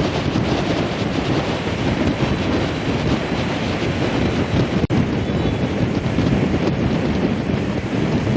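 Steady rush of the flooding Godavari river's water, with wind buffeting the microphone. The sound cuts out for an instant about five seconds in.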